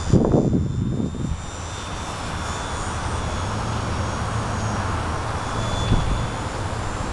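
Distant high-pitched whine of a foam RC plane's motor and propeller overhead, its pitch wavering slightly, under wind rumbling on the microphone that gusts in the first second or so.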